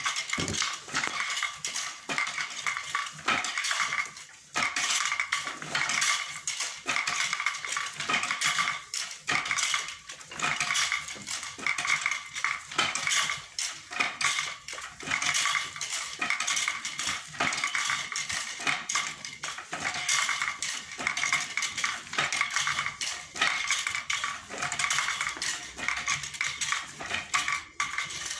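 Wooden foot-treadle floor loom clattering and knocking as it is worked by hand: wooden heddle shafts, spool pulleys and beater knocking together in a rapid, continuous rattle while weaving, with a short lull about four seconds in.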